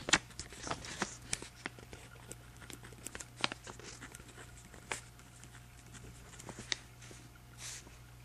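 Pen writing on journal paper: irregular short scratches and taps as the strokes land.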